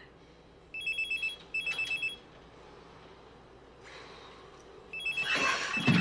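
Telephone ringing: two short, fast-warbling trills close together, then the ring starting again about four seconds later.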